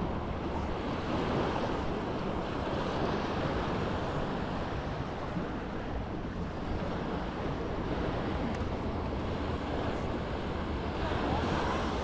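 Sea waves washing onto a beach, a steady surf that swells and eases every few seconds, with some wind on the microphone.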